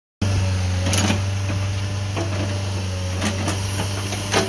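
Komatsu PC40 mini excavator's diesel engine running with a steady low hum, cutting in suddenly just after the start. A few sharp metallic knocks sound over it.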